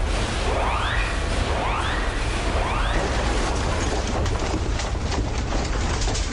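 Earthquake shaking: a heavy low rumble under rattling and crashing, while an alarm sounds three rising whoops about a second apart. From about halfway, a dense clatter of sharp rattles takes over.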